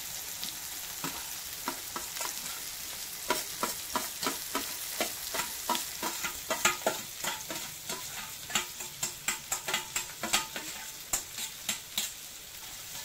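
Grated beetroot and coconut hissing steadily as they fry in hot oil with mustard seeds and curry leaves for a thoran, while a metal spoon clicks and scrapes against the steel bowl and pan many times.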